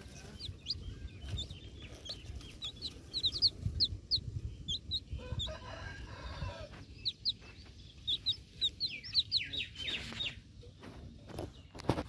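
Chicks cheeping from inside pipped eggs: many short, high peeps in quick runs, with one longer, lower call from an adult chicken about five seconds in, over a low rumble.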